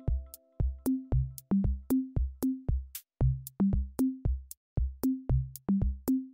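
Electronic background music with a steady drum-machine beat of kick drum and sharp clicks under short repeated synth notes.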